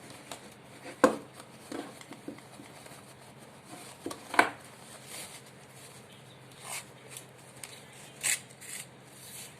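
Hands unpacking a camera tripod from its bag: scattered knocks and clicks of plastic and metal parts, with a few brief rustles. The sharpest knocks come about a second in and about four and a half seconds in.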